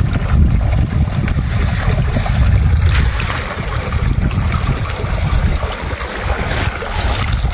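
Steady low rumble of wind buffeting the microphone, with a few faint clicks of river stones and gravel being shifted by hand.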